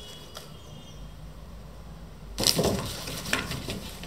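Cardboard box crackling and scraping as a cat pushes into it, a sudden burst of crinkling about two and a half seconds in with a sharper snap just under a second later.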